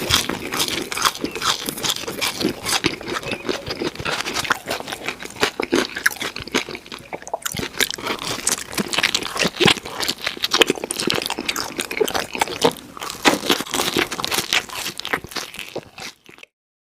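Close-miked eating sounds of someone biting and chewing pizza: crunching of the crust and dense, irregular wet mouth clicks. The sound cuts off abruptly near the end.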